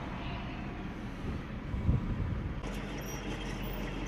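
Low, steady rumble of a military Humvee's diesel engine idling, with wind noise on the microphone; a single thump about two seconds in.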